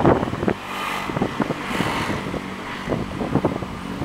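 Wind buffeting the camera microphone in irregular gusts, over a steady outdoor background hum.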